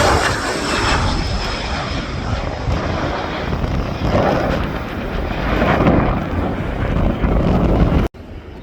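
An airliner's engines running loud as it passes, a faint high whine falling in pitch over the first seconds, with wind buffeting the phone microphone and adding a heavy low rumble. The roar cuts off abruptly near the end.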